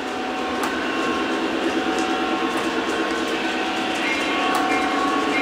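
A Lionel model diesel locomotive running with its onboard engine sounds, a steady rumble with several held tones that grows gradually louder as it approaches. A few faint clicks sound over it.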